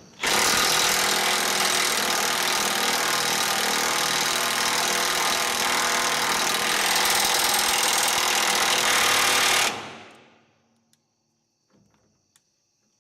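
DeWalt DCF899 cordless impact wrench hammering without a break for about ten seconds as it runs a nut up onto a threaded shaft, then stopping suddenly.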